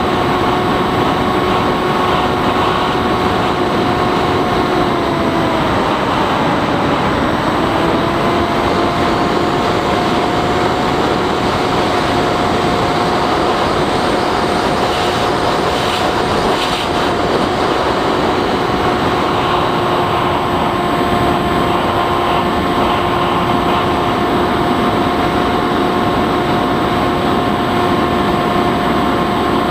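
Bixler 3 RC plane's brushless electric motor and pusher propeller running at steady cruise throttle: a steady whine over a rush of airflow. The pitch dips briefly about five seconds in as the throttle eases, then comes back up.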